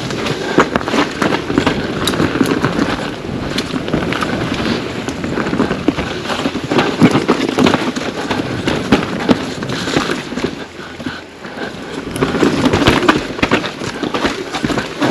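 Pivot Firebird 29 full-suspension mountain bike descending a rough dirt trail: tyres running over dirt and rock, with a constant rattle and many sharp knocks and clatters from the bike.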